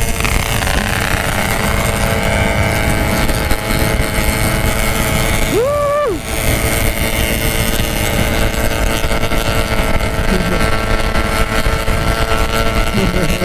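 Yamaha RX-King two-stroke motorcycle engines with 'packing power' aftermarket exhausts running steadily at cruising speed, heard from the rider's seat. About halfway through, the engine sound drops out for a moment while a short high tone rises, holds and falls away.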